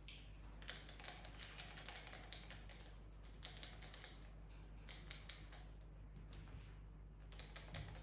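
Faint, irregular quick clicks and taps of a cockatoo's beak working a ring on a hanging rope toy.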